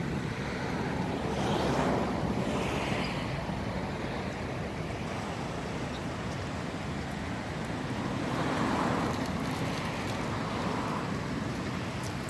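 Steady outdoor rushing background noise that swells and fades twice, about two seconds in and again around eight to nine seconds in, like passing traffic or wind.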